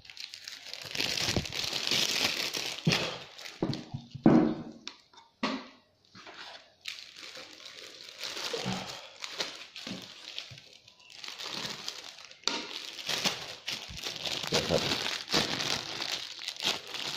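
Thin plastic bag crinkling and rustling in the hands as steamed sticky rice for khao mak is put into it and squeezed down firm.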